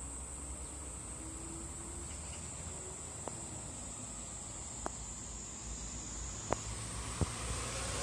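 A cicada singing, one steady high-pitched drone. A few faint clicks sound over it, two of them a little louder near the end.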